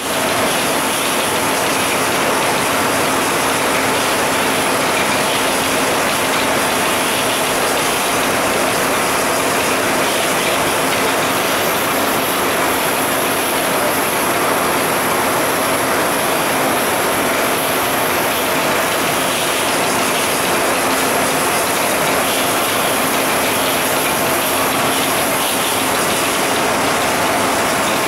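A 23,000-can-per-hour canning line running: cans rattling and clinking along chain conveyors in a dense, steady clatter over a constant machine hum.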